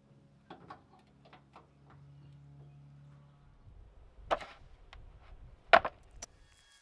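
A few light clicks of pliers and wire ends being handled, then two loud slaps about a second and a half apart as a black ribbed mat is set down flat onto a plywood board on a concrete floor, the second slap the louder.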